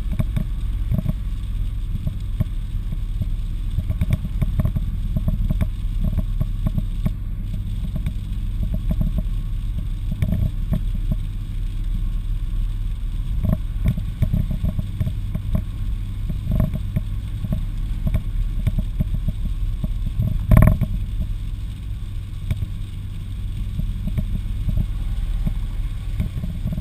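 Car driving on a wet motorway, heard from inside the cabin: a steady low road and engine rumble with frequent small knocks. A louder thump comes about two-thirds of the way through.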